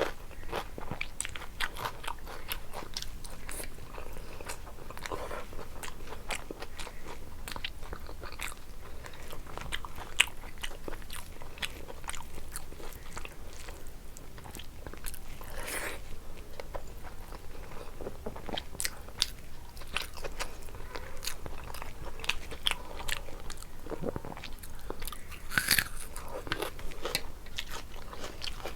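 A person chewing and biting crunchy food, with many rapid crisp clicks and crackles and a few louder crunches.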